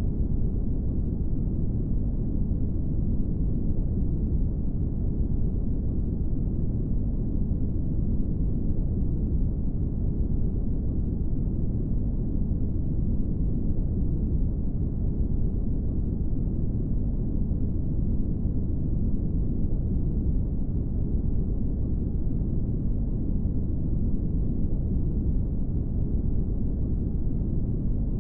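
Brown noise: a steady, deep rushing hiss weighted toward the low end, with no change over the whole stretch.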